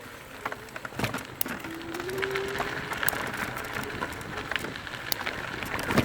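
Mountain bike rolling down a rough trail: tyres crunching over dirt and stones, with many sharp clicks and rattles from the bike. A short rising tone sounds about two seconds in.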